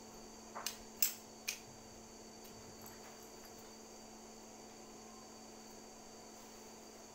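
Four sharp metal clicks, the third the loudest, from pliers and small metal parts being handled at a welding cable end, then a few faint ticks, over a steady background hum.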